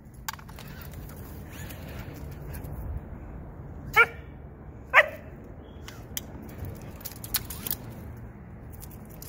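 Dog barking: two short, sharp barks about a second apart.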